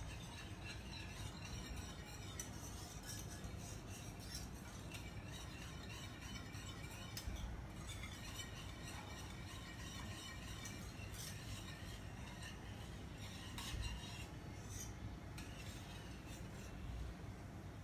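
Wire balloon whisk stirring milk in a stainless steel pan: faint, irregular clinks and scrapes of metal on metal as the gelatin is stirred until it dissolves.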